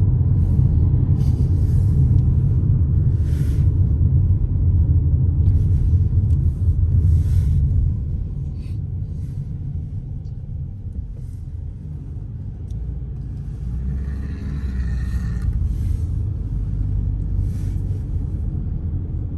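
Low, steady road and engine rumble heard from inside a moving car, dropping noticeably quieter about eight seconds in.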